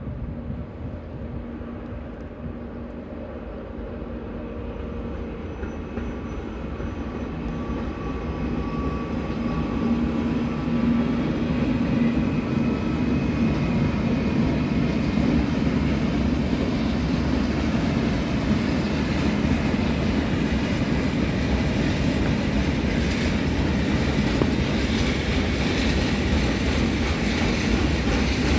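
Medway 4700-series electric freight locomotive approaching and passing, growing louder over the first ten seconds with a low steady hum, followed by a long train of container flat wagons rolling by with rapid, regular clickety-clack of wheels over the rail joints.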